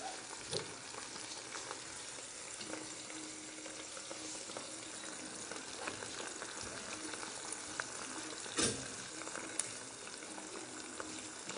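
Sausages and frankfurters frying in a pan: a steady sizzle, with a few brief knocks, the clearest about eight and a half seconds in.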